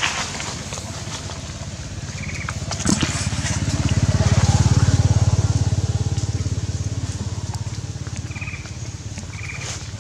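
A motor vehicle's engine passing by: a low, fast-pulsing hum that grows louder for a few seconds and then fades away. A few short high chirps sound over it.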